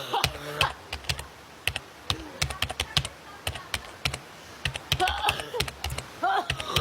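An irregular run of quick, sharp clicks, several a second, like typing, with a few short voiced sounds from a person in between.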